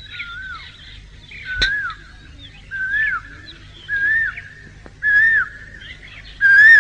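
A whistled call repeated six times, about once a second, each note rising then falling, climbing a little in pitch and getting louder with each repeat. A sharp click comes about one and a half seconds in, over a steady low hum.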